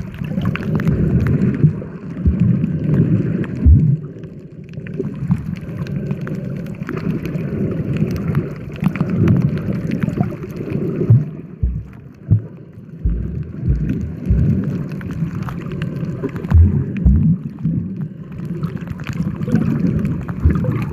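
Wind buffeting the microphone in gusts, a loud rough rumble with several deep thumps, over the sea.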